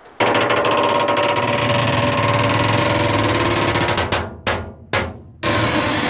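Dry metal hinge on a truck box door creaking loudly as the door swings: a fast rattling chatter with a squeal in it for about four seconds, then two short creaks and another long one near the end. It is a stubborn squeak that penetrating lubricants and dry Teflon had not cured.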